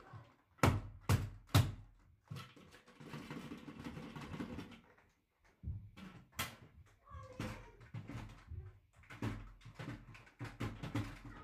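Handling noise with the upright vacuum switched off: three sharp knocks about a second in, a stretch of rustling, then scattered clicks and thumps as the vacuum is moved and someone walks across a shag rug.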